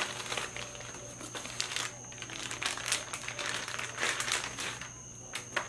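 Newspaper and brown packing paper crinkling and rustling in irregular bursts as a wrapped part is unwrapped and pulled out of a cardboard box, with one sharper crackle near the end.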